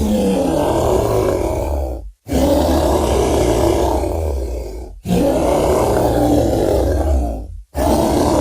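Giant-gorilla monster roar sound effect: deep, rough growling roars of about two and a half seconds each, played back to back three times with a sharp cut between them, and a fourth beginning at the end.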